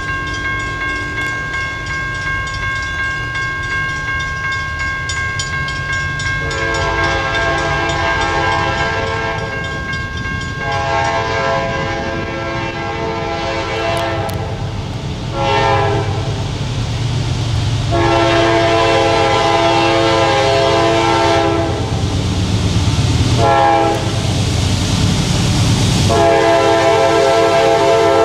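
Diesel locomotive horn on an approaching CSX GE CW44AC freight, sounding the grade-crossing signal: two long blasts starting about six seconds in, a short one, another long one, a short one, and a last long blast near the end. Under it run the locomotive's low rumble and the crossing signal's steady ringing tone, which is heard alone at first.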